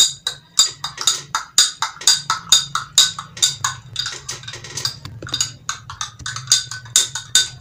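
Metal teaspoon stirring liquid in a tall drinking glass, clinking rapidly against the glass, about four or five clinks a second, each with a short ringing tone.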